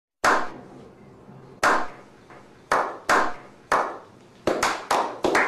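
A slow clap: a small group of people clapping, starting with single claps more than a second apart and speeding up until several come each second.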